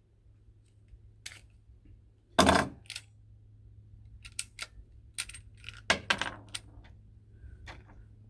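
A string of sharp metallic clicks and clacks, irregular and of varying strength, from a firearm's metal parts being handled, the loudest about two and a half seconds in. A faint steady hum runs underneath.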